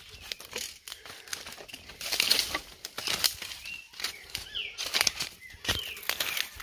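Footsteps crunching and crackling through dry bamboo leaf litter and fallen canes, with stems brushing past, in an irregular walking rhythm. A few short bird calls sound in the background.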